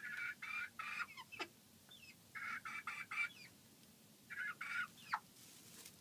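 Hens clucking as they settle on their roost for the night: three runs of quick, evenly spaced clucks, with a short squawk falling in pitch after the first run and another after the last.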